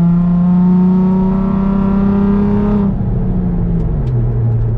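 Nissan 350Z's 3.5-litre V6, with test pipes and the muffler deleted, pulling at full throttle in third gear, its note climbing steadily as the revs rise toward 4000 RPM; about three seconds in the throttle is lifted and the revs drop to a lower steady note.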